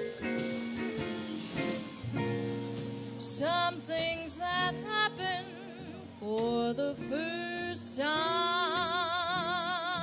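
Live swing-band ballad: a female vocalist sings slow phrases with wide vibrato over guitar chords and bass. Guitar chords carry the first few seconds, the voice comes in about three and a half seconds in, and near the end she holds one long note.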